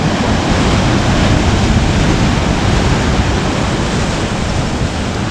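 Steady rushing noise of sea surf on a rock breakwater mixed with wind, with gusty low buffeting of wind on the microphone.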